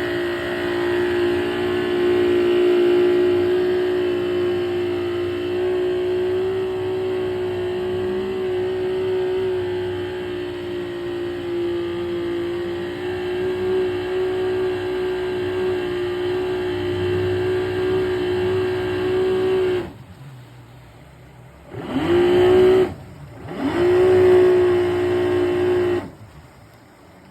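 Carbureted Johnson 150 V6 two-stroke outboard running steadily at high throttle. About 20 seconds in it is throttled back hard, then revved twice in short blips that climb in pitch and drop away again.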